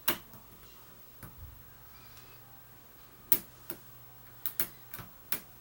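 Hook pick and tension wrench working the pins of a pin-tumbler challenge lock: about eight sharp, small metallic clicks at irregular intervals as the pick lifts and taps pins in the keyway.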